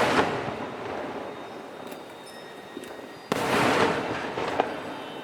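Aerial fireworks shells bursting: a loud bang at the start and another about three seconds later, each fading away over a second or so, with a sharp crack near the end of the second.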